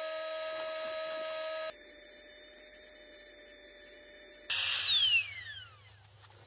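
Flextail battery-powered mini air pump running with a steady high whine while it inflates a sleeping pad. About two seconds in its tone drops and quietens. Near the end there is a short loud burst of noise, and the motor's whine falls in pitch as it spins down.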